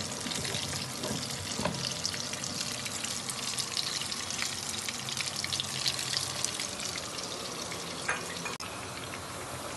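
Hot oil sizzling steadily in a frying pan, with fine crackles all through.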